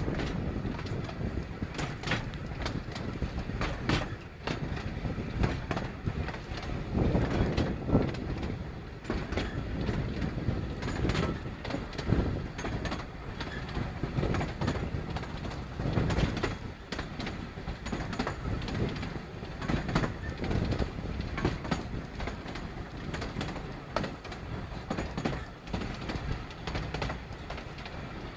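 Narrow-gauge steam train hauled by the Hunslet tank engine Maid Marian, heard from a carriage while running: a steady rumble of the moving carriage with the wheels clicking and clattering irregularly over the track.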